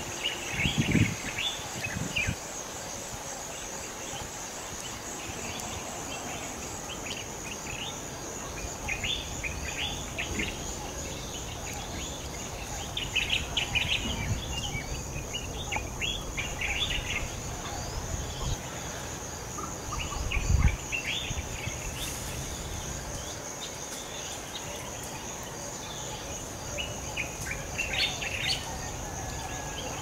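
Tropical forest ambience: a steady, high, pulsing insect chorus with bird calls and chirps breaking in now and then in short bunches. A few brief low bumps sound near the start and about two-thirds of the way through.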